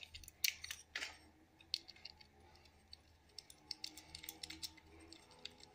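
Faint, irregular small metal clicks and taps of 6 mm bolts, washers and nuts being handled and fitted by hand to a belt tensioner pulley.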